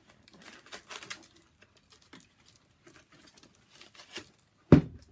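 Faint rustling and light handling noises from a pair of packaged socks being handled. There is one sharp, loud knock near the end.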